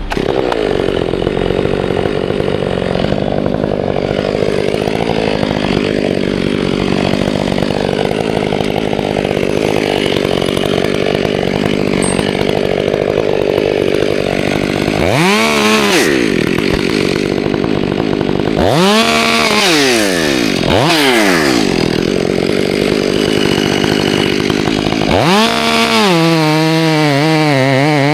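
Petrol chainsaw running and cutting wood, its engine pitch dropping and climbing again several times in the second half as the throttle and load change.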